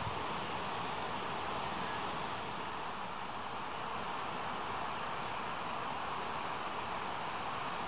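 Steady outdoor rushing noise, even in level throughout, with no distinct calls or knocks.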